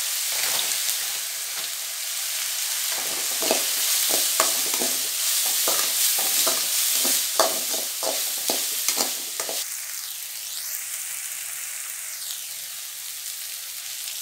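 Chopped onions sizzling in hot oil in an aluminium kadai, being sautéed. A metal ladle stirs them, scraping and clinking against the pan in quick irregular strokes, and stops about two-thirds of the way through, leaving the steady sizzle alone.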